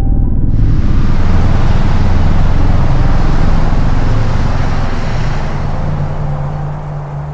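Car road noise heard from inside the cabin: a loud, even rush over a low steady hum, coming in about half a second in and easing off toward the end.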